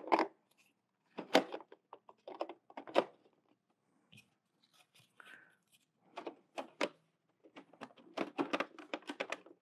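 Hard plastic clicks and knocks from handling the Hasbro HasLab Razor Crest toy ship as its escape pod is fitted back into the hull; irregular taps, coming quicker near the end.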